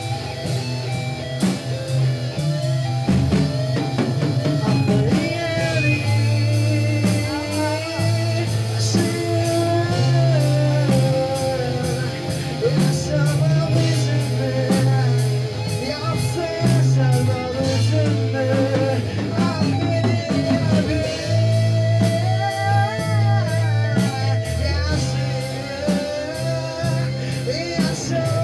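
Rock band playing: electric guitars over a stepping bass line and a steady drum-kit beat, with a lead melody that bends in pitch above.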